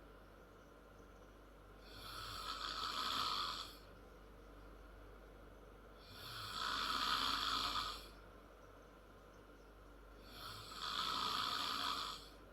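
A 10-year-old girl snoring loudly, with three long, raspy snores about four seconds apart.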